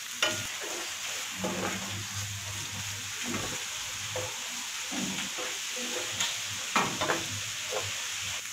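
Ground masala paste and onions sizzling in hot oil in a non-stick pan while a spatula stirs and scrapes them around in repeated strokes, the masala being sautéed into the onions.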